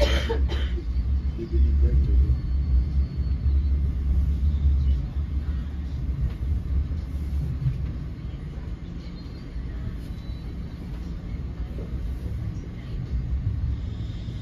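Low, steady rumble of an NJ Transit Multilevel passenger coach running along the track, heard from inside the car. It is heaviest for the first five seconds and eases a little after that. A brief sharp noise comes right at the start.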